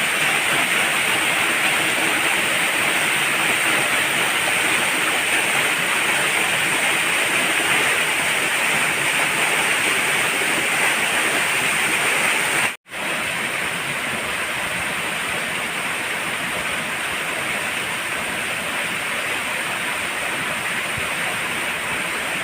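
Waterfall pouring into its plunge pool: a steady, loud rushing of falling water. It drops out for a moment about halfway through and comes back a little quieter.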